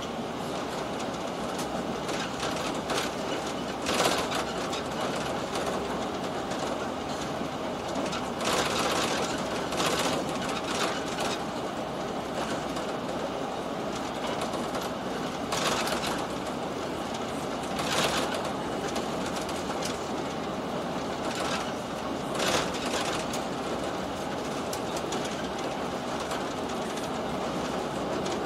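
Running noise of the Limited Express Sonic, an electric train, heard from inside a passenger car: a steady rumble of wheels on rail, with louder clacks from rail joints every few seconds.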